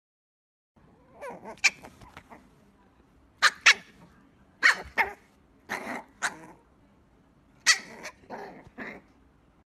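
Small white puppy barking: a dozen or so short, sharp yaps, often two in quick succession.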